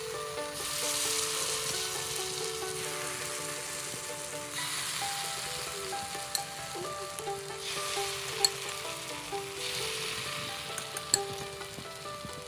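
Minced pork, tomato and egg filling sizzling in hot oil as it is spooned into hollowed baguette rounds in a frying pan; the sizzle swells three times as each spoonful goes in. A few sharp clicks come from the metal spoon against the pan and bread.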